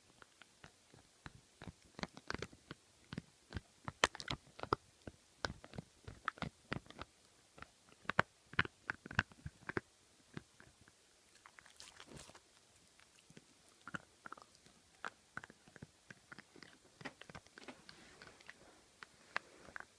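A dog gnawing a hard chew bone close to the microphone: irregular crunching and clicking bites, with a short break and a brief rustle near the middle.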